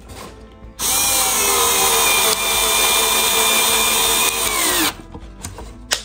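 Cordless electric screwdriver driving a screw, its motor whining steadily for about four seconds and then dropping in pitch as it stops.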